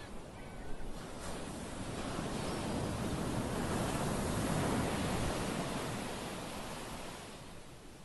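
Sea surf breaking and washing up a sandy beach, the rush of the wave swelling to a peak about halfway through and ebbing away near the end.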